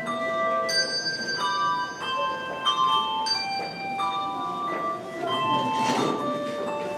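Handbell choir playing a piece: struck bells ringing on in overlapping notes and chords.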